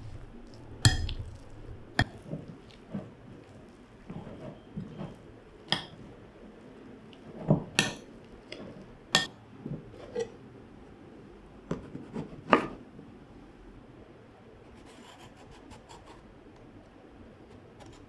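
A metal spoon clinking and scraping against a ceramic bowl while mixing food, mixed with knocks of kitchen items on a wooden board. The sharp clinks come irregularly, a dozen or so, and stop about two-thirds of the way through.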